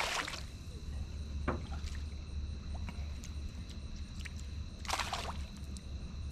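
Water lapping and splashing around a small fishing boat over a steady low hum, with a short splash about five seconds in and a few light clicks.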